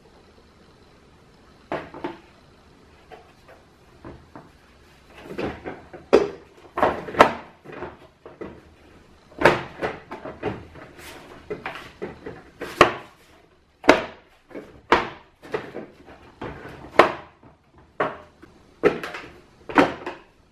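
Hard plastic parts of a Fisher-Price Sit, Stride & Ride Lion walker knocking and clicking together as the blue seat is pushed down onto the yellow body. The knocks are sparse at first and become frequent and sharper from about a quarter of the way in.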